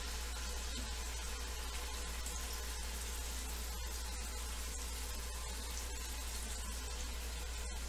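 Pork loin sizzling steadily as it browns in butter in an Instant Pot on its sauté setting, over a low steady hum.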